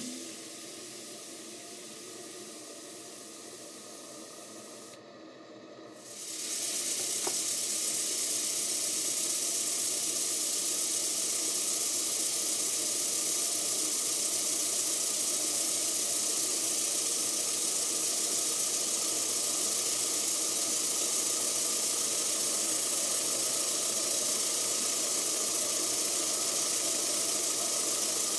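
A quieter hiss, then from about six seconds in a Stuart Turner twin launch model steam engine (double-acting twin cylinders) running fast on steam: a loud, steady hiss of exhaust steam with no separate beats.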